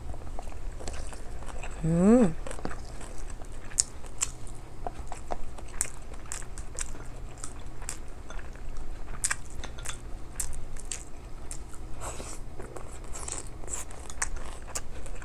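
Close-up eating sounds: chewing with small wet clicks and smacks scattered through. About two seconds in, a brief rising voiced hum.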